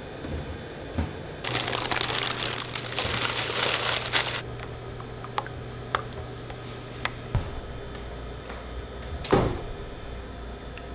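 A silicone spatula stirring thick, syrupy pecan pie filling in a stainless steel bowl, with a few light taps and one heavier knock and scrape against the steel near the end. Earlier, a loud rough crackling noise over a low hum lasts about three seconds.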